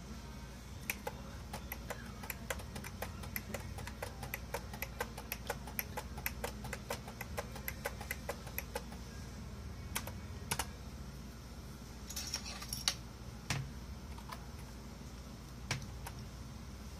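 Computer keyboard typing: a quick run of key clicks for about eight seconds, then a few scattered clicks, over a low steady hum.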